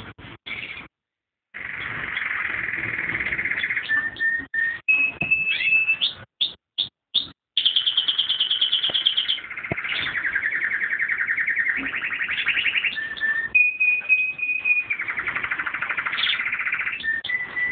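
Domestic canary singing a long song of rapid rolling trills and steady whistled notes, starting about a second and a half in, with a faster, higher trill about halfway through.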